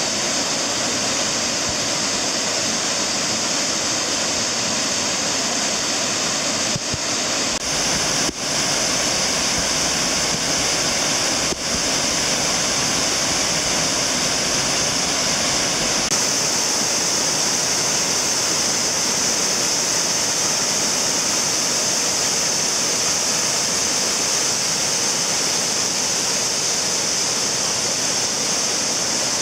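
Waterfall rushing: a steady, loud roar of falling water with a strong hiss.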